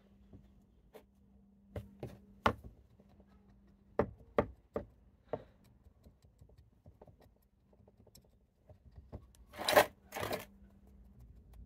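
Metal bonsai root hook working through a root ball of roots and compost, giving a run of sharp clicks and knocks, then two louder scratchy rustles near the end as it rakes the soil loose.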